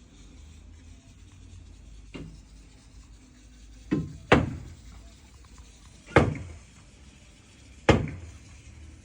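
Concrete on a building site being broken with heavy hammer blows: a faint knock, then four loud bangs, two in quick succession and two more about two seconds apart, each ringing out briefly.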